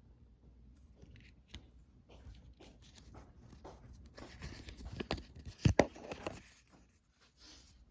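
Packaging being handled and opened by hand: rustling and crinkling with scattered small clicks, getting busier midway and peaking in a few sharp knocks about five and a half seconds in.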